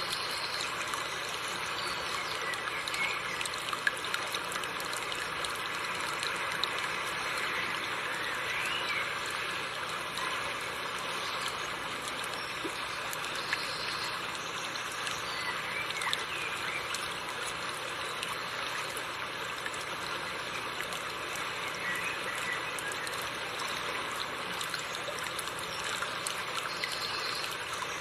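River water running and babbling over rocks, a steady stream sound with no lulls. A few faint, short, high chirps sound over it now and then.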